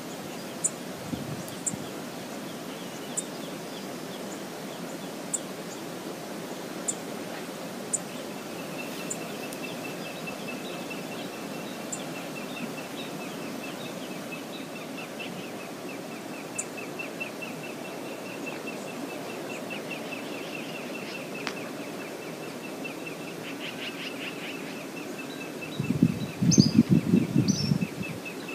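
Steady rush of a shallow river flowing over riffles, with a bird trilling on one high note from about a third of the way in and a couple of short high bird calls near the end. A burst of low rumbling thumps near the end is the loudest sound.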